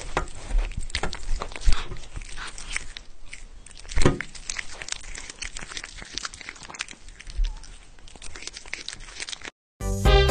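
Two cats chewing and biting on a red sugar-coated candy strip: irregular crunching and tearing clicks, with a louder snap about four seconds in. Music with a beat starts abruptly near the end.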